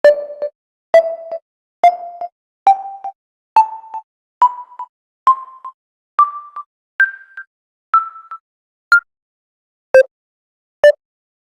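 Samsung SGH-T369 phone's keypad tones as the keys are pressed one after another, a little under one a second: each a short beep with a click at its start, stepping up in pitch from key to key. Near the end a new run of shorter beeps starts low again.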